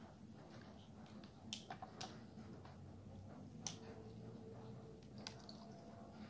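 Faint pour of a thick pink strawberry drink from a plastic measuring jug into a plastic cup of ice. Several short sharp clicks are spread through the pour.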